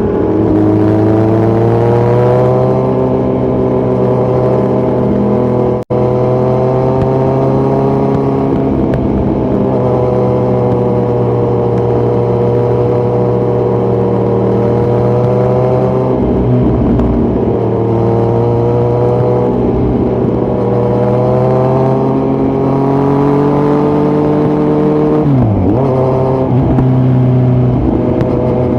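2018 Kawasaki Z900's inline-four, with Delkevic headers and a Yoshimura muffler running without a dB killer, running loud at fairly steady revs under way, its pitch rising and falling slowly with the throttle. Near the end the revs drop sharply and climb back. About six seconds in the sound cuts out for an instant.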